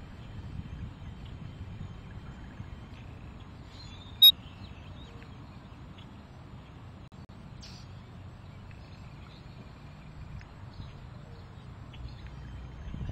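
Outdoor ambience: a steady low wind rumble on the microphone with faint birds chirping, and one short, sharp, high pip about four seconds in that stands out as the loudest sound.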